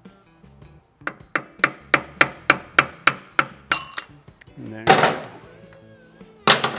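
Flat-blade screwdriver tapping against the metal top of a motorcycle fork lower, about three sharp taps a second, working the fork's dust cap loose. A louder metallic clatter comes about five seconds in, and one more sharp knock near the end.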